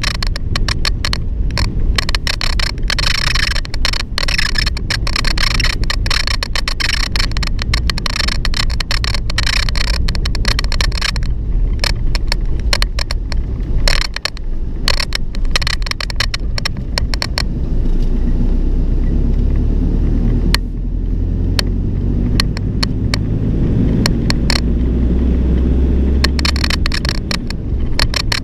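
A vehicle's door squeaking and rattling over a bumpy road, heard from inside the vehicle above the steady low rumble of engine and tyres. The rattling is heavy for the first ten seconds or so, eases off through the middle, and picks up again near the end.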